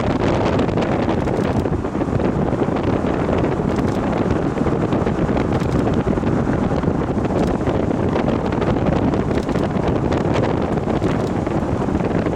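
Wind buffeting the microphone: a steady, loud rumbling noise with no let-up.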